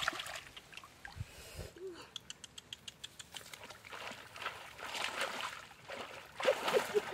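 Hands splashing and sloshing in shallow muddy water, with many small sharp splashes and drips, growing louder near the end.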